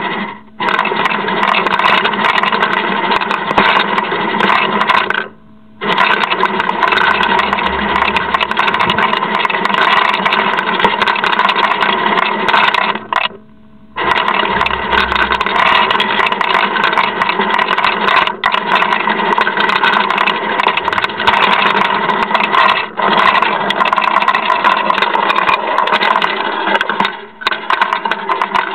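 Automatic pet feeder running without stopping, its motor whirring and dry kibble clattering out in a dense rattle, heard through a small camera microphone; it breaks off for about a second a few times, once near the middle, then starts again. The feeder is acting up and won't stop dispensing.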